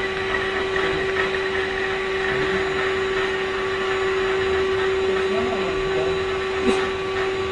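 Canister vacuum cleaner running with a steady hum and hiss, its hose detached so the motor draws through an open inlet.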